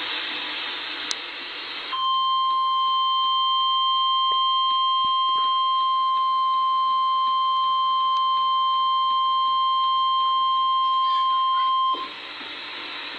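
Emergency Alert System warning alarm tone: one steady, single-pitched, high beep held for about ten seconds, announcing a flash flood warning. A steady hiss comes before it and returns when it cuts off, about a second before the end.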